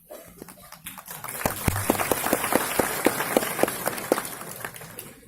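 Audience applauding. It swells about a second in and dies away near the end.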